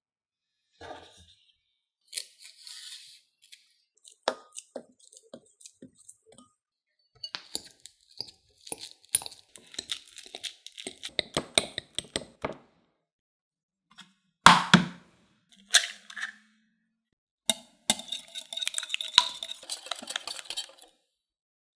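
Food-preparation sounds of a banana and egg batter being made. A metal utensil mashes a ripe banana in a glass bowl, with rapid clinks against the glass. About fourteen seconds in there is one loud crack, typical of an egg being broken, and near the end the mixture is stirred quickly, scraping and tapping against the glass bowl.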